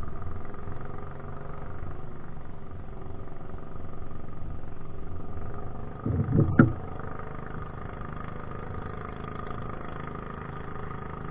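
An engine running steadily, with a brief loud rumble about six seconds in that ends in a sharp knock.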